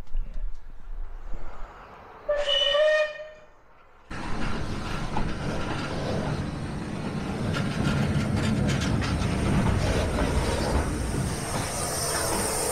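A steam locomotive's whistle gives one short blast about two seconds in. After a pause the locomotive runs slowly past close by as it runs round its train, a steady rumble with steam hissing that grows louder as it draws alongside.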